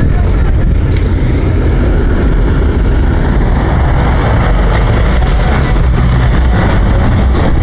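Cars running in street traffic: a loud, steady low rumble of engines and exhaust.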